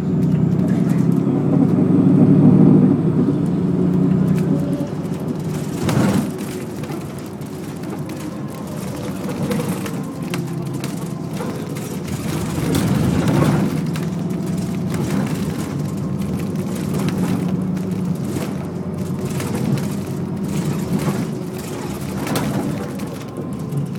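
Bus engine running with road noise, heard from inside the passenger cabin; the engine hum is louder for the first few seconds, then eases. Sharp knocks or rattles cut through, most clearly about six seconds in and again around thirteen seconds.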